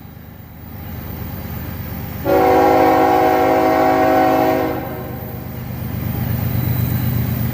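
Third-generation Nathan K5HL five-chime air horn on a CSX GE ES44AH locomotive sounding one long blast of about two and a half seconds, starting a little over two seconds in. The low rumble of the oncoming train runs underneath and grows louder toward the end.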